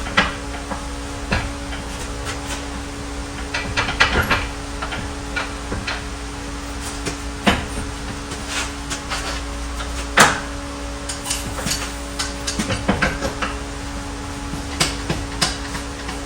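Irregular metallic clanks and knocks of hand tools and car parts being handled during repair work, with the loudest knock about ten seconds in, over a steady hum.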